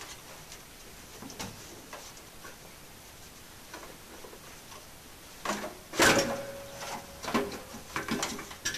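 Faint clicks, then from about five and a half seconds in a run of loud metal clunks and scraping as the stock muffler of a 2011 Polaris RZR XP, its retaining springs already off, is wrenched loose from the exhaust. A brief metallic ring sounds with the loudest clunk, about six seconds in.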